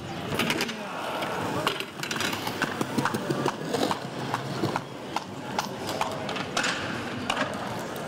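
BMX bike clattering on hard ground: a run of sharp, irregular clacks and knocks, several a second, busiest in the middle stretch.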